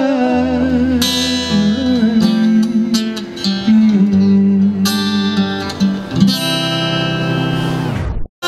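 Steel-string acoustic guitar strumming chords in a steady rhythm, an instrumental passage with no singing. The sound cuts off suddenly near the end.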